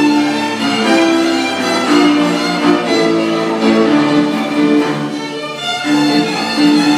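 A chamber string orchestra playing sustained notes on violins and other bowed strings. The orchestra comes in loudly together at the start.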